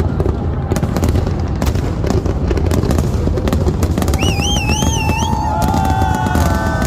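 Fireworks display going off: rapid bangs and crackles over a steady low rumble. From about four seconds in, a warbling high whistle and some falling whistling tones join.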